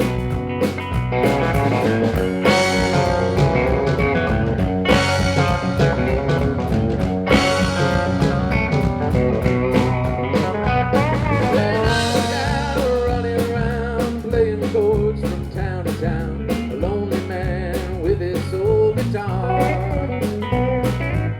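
Live country band playing an instrumental break between sung lines: bass and drums with several cymbal crashes, under a lead melody that bends in pitch.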